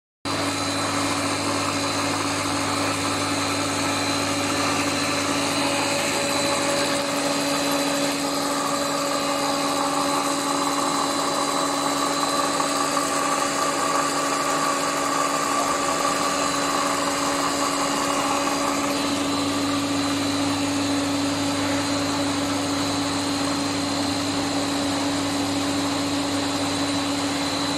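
Plastic corrugated conduit extrusion line running: a steady mechanical drone with a constant hum and a thin high whine.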